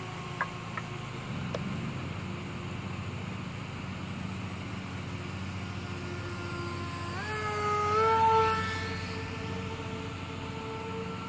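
Electric motor and propeller of a small foam RC airplane in flight: a steady whine over a low hum, rising in pitch about seven seconds in and loudest about eight seconds in, then easing off.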